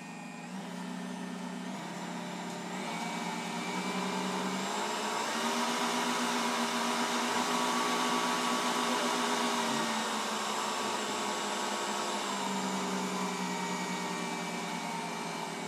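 Assistent AKM6120b stand mixer's 800 W motor running, its pitch stepping up over the first few seconds and back down a little after the middle as its stepless speed control is turned.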